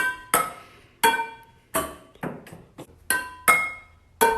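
Hard objects being struck one after another, about nine sharp taps roughly half a second apart, each ringing out at a different pitch so the strikes form a little tune.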